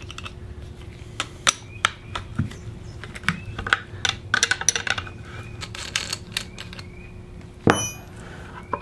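A small ratcheting wrench clicking in quick irregular runs as it loosens the bolts of a carburetor's plastic intake manifold. Near the end comes one louder metallic clink with a short ring, as the wrench is set down.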